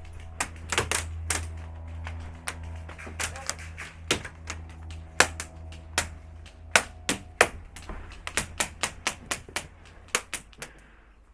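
Airsoft guns firing: many sharp, irregular cracks from single shots, coming quicker, about three a second, from about eight seconds in, and stopping shortly before the end.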